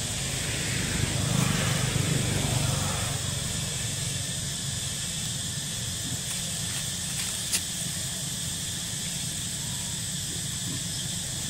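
Steady hiss, with a vehicle passing on the road that swells and fades about one to three seconds in.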